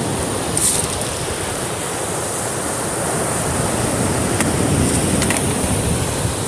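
Black Sea surf washing onto the beach in a steady wash that swells a little past the middle, with wind buffeting the microphone.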